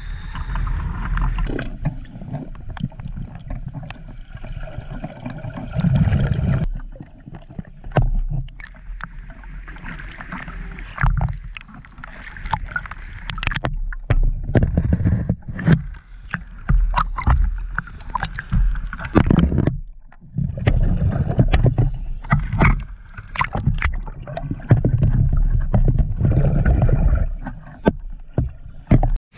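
Sea water sloshing and lapping around the microphone at the surface. About seven seconds in it gives way to muffled underwater gurgling and bubbling, coming in irregular bursts with brief lulls.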